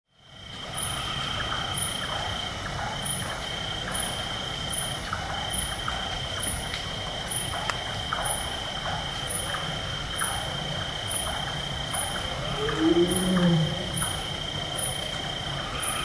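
A Bengal tiger gives a short, deep roar near the end, the loudest sound here. Under it runs a night forest background of a large-tailed nightjar's repeated chopping calls, a steady high-pitched tone and regular high chirps about once a second.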